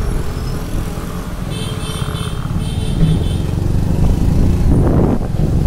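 Steady low rumble of a moving vehicle riding along a street. A high-pitched pulsing tone, about four pulses a second, sounds for about two seconds starting one and a half seconds in.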